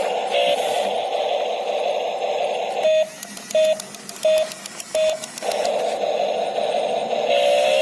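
Electronic sound through a small speaker: a steady buzzing tone that breaks off for four short, evenly spaced beeps before starting again.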